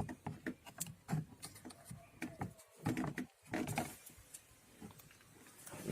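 Scattered clicks and knocks of hand work on a Maruti Suzuki Alto's door trim, the door pad and its plastic retaining clips being pulled and handled, with a few sharper knocks about a second, three and four seconds in.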